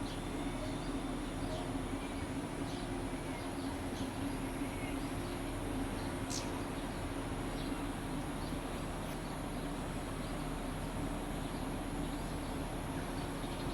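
Scattered short, faint high chirps of swiftlets over a steady low hum and hiss.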